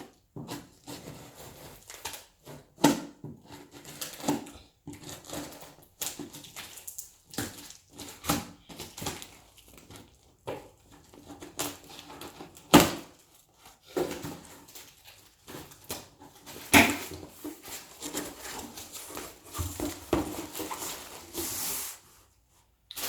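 Irregular knocks, clatter and rustling from a box of clothes being unpacked by hand, with sharper loud knocks about 3, 13 and 17 seconds in.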